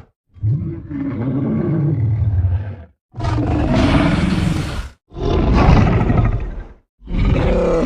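King Kong movie roar sound effects: four separate giant-ape roars in a row, each one to two and a half seconds long with a short silence between them, the first lower and the later ones brighter.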